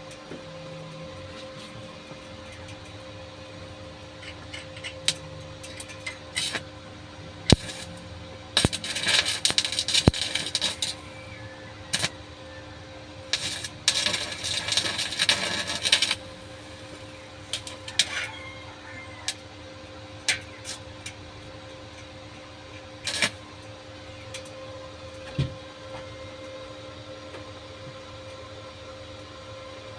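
Electric arc welding: two crackling bursts of a few seconds each, about nine and fourteen seconds in, with scattered sharp taps of metal over a steady hum.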